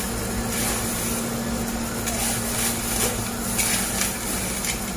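Hands rubbing and tossing small dried trida pasta squares in a wooden bowl, a light dry rustle, over a steady low mechanical hum.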